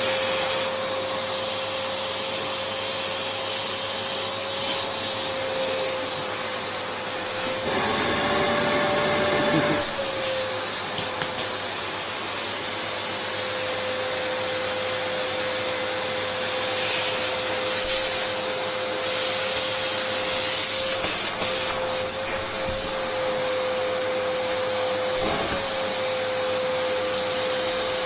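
Vacuum cleaner motor running continuously with a steady whine and rushing air. About 8 s in it briefly runs higher in pitch and louder for about two seconds, then settles back.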